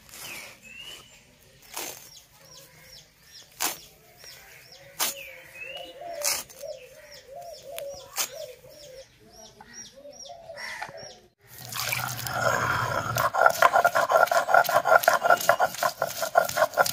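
Bottle gourd leaves being broken and cut against a boti blade, a few sharp snaps. Then, from about two-thirds of the way in, a stone roller grinding the leaves on a ridged stone grinding slab (sil-nora), a loud, rapid grating that is the loudest sound.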